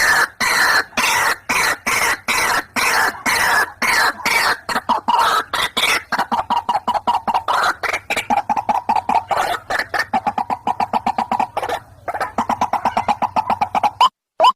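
White-breasted waterhen calling: a long run of rough, repeated notes a few per second that quicken into a fast stutter around the middle. Near the end the run breaks off suddenly, and a few clean, separate rising notes follow.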